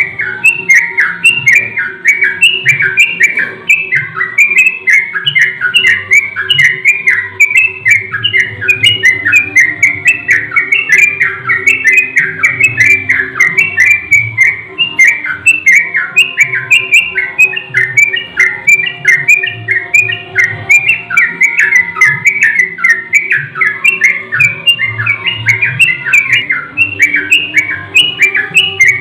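Yellow-vented bulbuls (trucukan) chattering noisily: a dense, unbroken run of quick, bubbly chirps with calls overlapping one another, played as a bird lure. A faint steady hum lies underneath.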